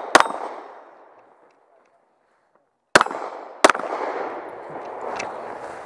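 Semi-automatic pistol shots fired at steel targets: one just after the start, then two more about three seconds in, roughly 0.7 s apart. Each crack echoes off the range, and between the first and second shots the sound drops out to dead silence for over a second.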